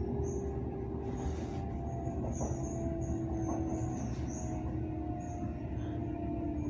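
Passenger train heard from on board as it slows into a station: a steady low rumble with a whine that sinks slowly in pitch as the train loses speed, and short faint high squeaks.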